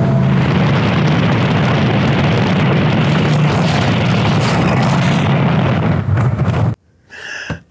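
Off-road truck running at highway speed, heard as heavy wind buffeting on a GoPro microphone over a steady low engine drone. The sound cuts off suddenly about a second before the end.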